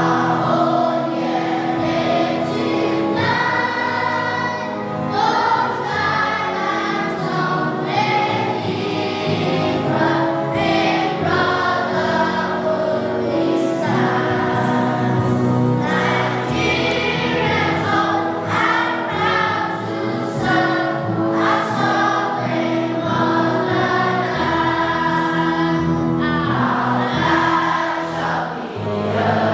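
A national anthem sung by a choir over instrumental accompaniment, with long held chords beneath the voices.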